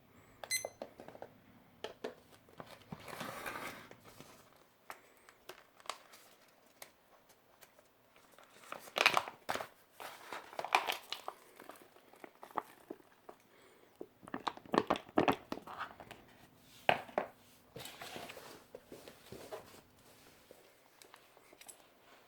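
Plastic and foil ration packets being handled, crinkling and rustling in irregular bursts with occasional sharp clicks.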